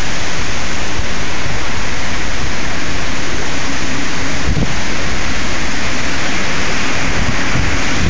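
Strong storm wind rushing through the street trees and buffeting the microphone: a loud, steady rushing hiss with low rumbling gusts, one of them about four and a half seconds in.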